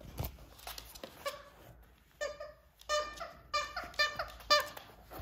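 Squeaker inside a plush monkey toy squeaking as a rat terrier bites it: about five short, high squeaks from about two seconds in, after a few light knocks of paws and toy on a wooden floor.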